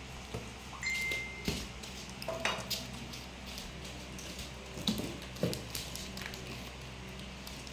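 Scattered light knocks and clinks on a tabletop, the last two as a shrink-wrapped pack of small plastic drink bottles is set down; a short high ping sounds about a second in.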